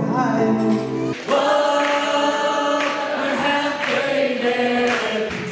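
A male singer sings with chords on a Yamaha electric keyboard. About a second in, the sound cuts to different music with long held sung notes.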